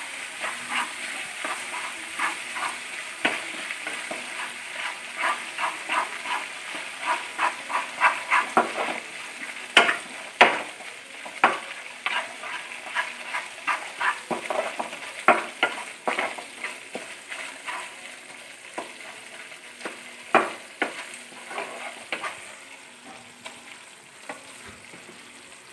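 Ground spice paste frying in hot sesame oil in a non-stick pan: a steady sizzle while a spatula scrapes and taps the pan in quick stirring strokes. The strokes come thick at first, then thin out, and the sizzle dies down toward the end.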